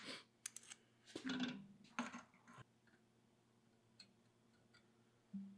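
A few light clicks and knocks of metal parts and tools being handled, clustered in the first two and a half seconds, with one more small tick about four seconds in.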